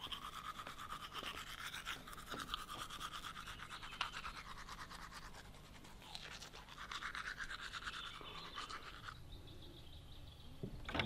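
Teeth being brushed with a toothbrush: fast scrubbing strokes that stop about nine seconds in.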